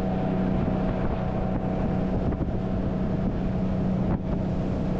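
Engine running at a steady speed, a constant low hum, with wind buffeting the microphone.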